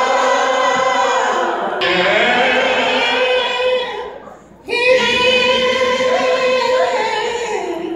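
Gospel singing led by a woman's voice, holding long notes in two phrases with a short break about halfway.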